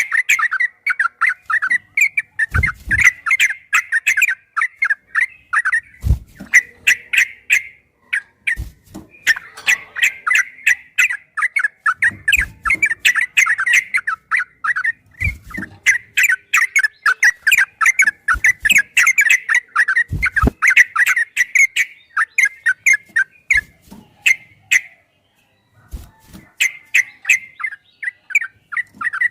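Sooty-headed bulbul (trucukan) singing long, rapid runs of chattering notes, the fast continuous 'ropel' song, with short pauses between runs and a few low thumps.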